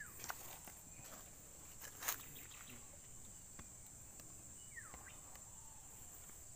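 Steady high-pitched drone of insects, with two short falling whistles and a sharp click about two seconds in.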